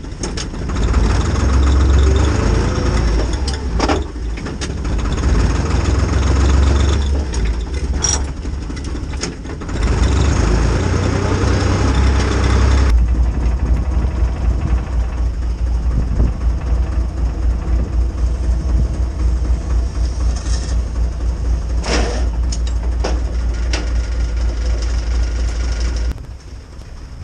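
IHC 633 tractor's three-cylinder, three-litre diesel engine driving, its pitch rising and falling twice in the first twelve seconds, then running steadily at idle before it cuts out near the end. A few sharp knocks sound over the engine.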